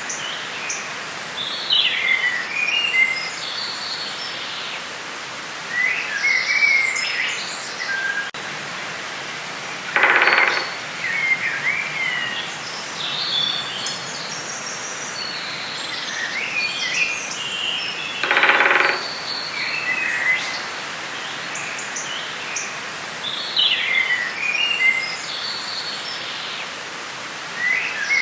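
Forest ambience: songbirds chirping and singing over a steady background hiss. Two louder, lower-pitched sounds come about ten and eighteen seconds in.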